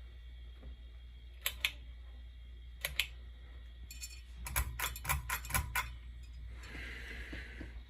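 Sharp clicks of a ceiling fan's pull-chain switch being worked, on a 52" Crest 4500 Series fan that no longer works: two pairs of clicks, then a quick run of about eight.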